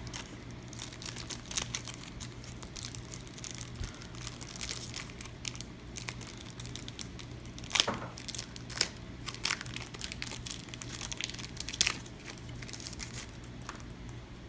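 Yu-Gi-Oh! booster pack's foil wrapper being torn open and crinkled, with irregular crackles throughout and a couple of sharper snaps about eight and twelve seconds in.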